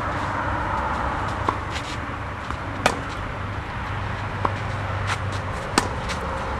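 Tennis rally: rackets striking the ball about every one and a half seconds. The two loudest strikes, from the near player, come about three seconds apart, with fainter hits from across the court between them, over a steady low hum.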